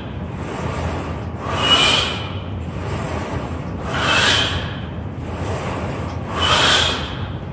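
A man breathing hard while exercising, with three forceful breaths about two and a half seconds apart in time with his squat reps, over a steady low hum.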